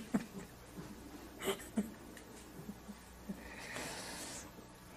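A quiet pause in conversation: faint room noise, a brief vocal sound about a second and a half in, and a soft breath near the end.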